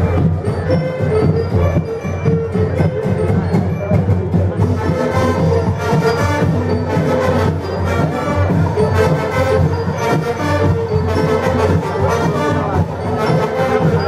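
Marching band playing: brass carrying the tune over steady, rhythmic drumming.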